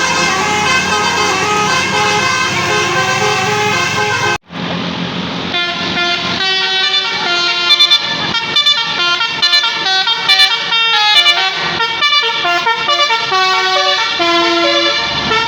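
Tour bus 'telolet basuri' musical horn playing a tune of several pitched tones, loud, with a brief break about four seconds in; after it the horn plays on as a quick run of separate stepped notes.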